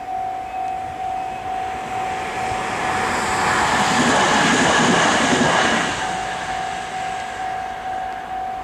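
Level-crossing warning bell ringing at about two strikes a second while a train passes. The train's noise swells to a peak about four to five seconds in, briefly drowns the bell, then fades.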